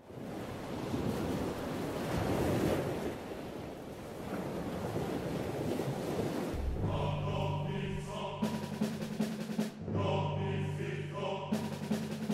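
Sea waves washing in over sand, a steady rushing noise; about halfway through, choral orchestral music comes in with sustained sung chords over a low held note.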